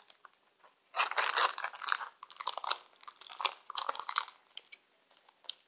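Crinkly foil blind-bag wrapper being handled and opened, with irregular bursts of crackling.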